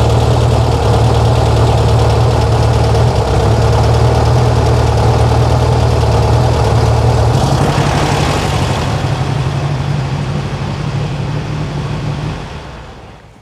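Air-cooled VW flat-four engine on freshly fitted dual EMPI 34 carburettors, idling steadily. About twelve seconds in, the engine stops and the sound dies away.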